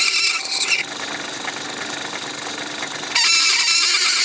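Metalworking lathe running while a craft knife blade scrapes against the spinning plastic chimney blank. About a second in the scraping stops, leaving the lathe's motor hum, and it starts again about three seconds in.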